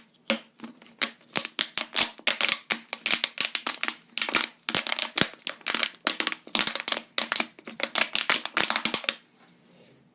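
A rapid, irregular run of sharp clicks and taps, several a second, that stops about nine seconds in.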